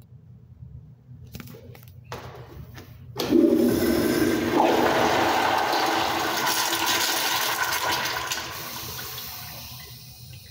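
A wall-hung toilet's manual flushometer valve flushing: a few clicks, then about three seconds in a sudden, loud rush of water that runs for about five seconds and tapers off near the end.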